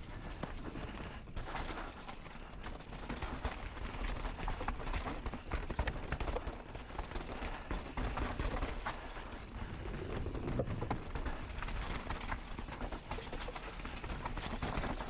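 A mountain bike riding fast down a rough trail. The tyres roll and crunch over dirt, rocks and wooden boards, and the bike clatters and rattles steadily over the bumps.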